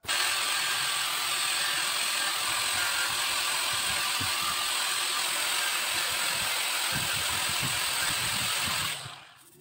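Small electric angle grinder with a sanding disc on a rubber backing pad, running with a steady high whine as it sands the bamboo frame of a cage; it starts suddenly and dies away near the end.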